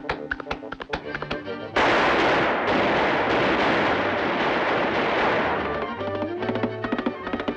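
Cartoon soundtrack music with sharp tapping clicks, cut about two seconds in by a sudden loud burst of dense crackling noise effect that lasts about four seconds before the music returns.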